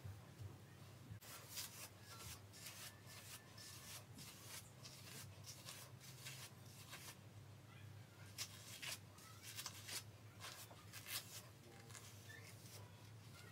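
Faint, irregular soft rustling and swishing as long hair is handled and run through with the hands, over a steady low hum.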